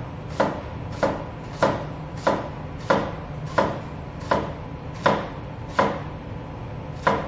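Chef's knife slicing a red onion on a plastic chopping board: about ten knocks of the blade on the board, one every two-thirds of a second or so.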